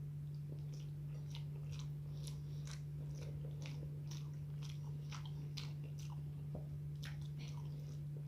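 A person chewing food close to the microphone: irregular short mouth clicks and smacks, about two or three a second, over a steady low hum.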